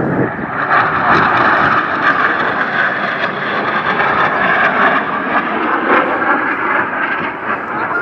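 Canadair NF-5 jets flying past overhead in a formation display, a loud, steady jet-engine rush.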